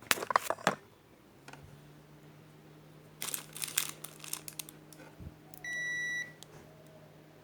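Multimeter continuity buzzer giving one steady beep of about half a second as the probes touch IC pins that are connected, a sign of a short or low-resistance path between them. Clicks and rattles of the probes being handled come before it.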